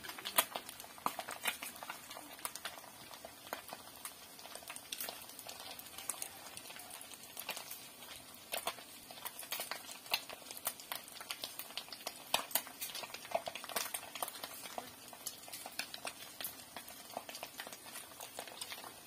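Spiced food cooking in a kadai over a gas flame, sputtering and crackling with irregular pops over a low steady hiss.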